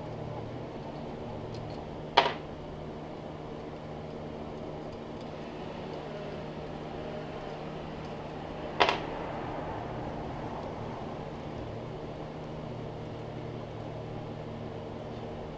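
Steady hum of an electric desk fan running, with two sharp clicks from the aluminium injection mould being handled, the first about two seconds in and the second about seven seconds later.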